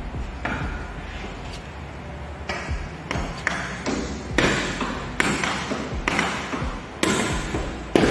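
A knife jabbing and scraping at the slats of a Securi-Lid 216 roller cover in an attempt to break in: a series of sharp knocks and rasping scrapes, sparse at first and louder and more frequent from about halfway through.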